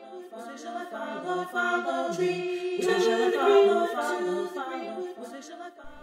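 A cappella singing, several voices in harmony with no instruments.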